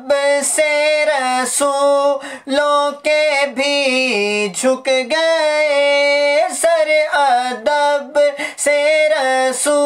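A man reciting a naat unaccompanied, singing Urdu devotional verse in a high voice with long held notes; the melody dips lower about four seconds in, then holds a long note.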